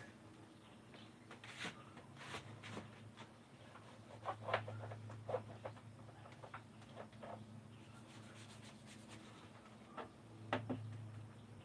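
Paintbrush strokes on a camper's wall panel: short, scratchy brushing and dabbing, with a few louder taps and knocks midway and near the end, over a faint steady low hum.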